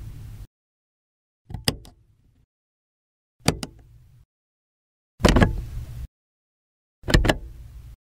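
A car door latching four separate times, about two seconds apart: each time a sharp double click from the latch, then a low thud that dies away within about a second.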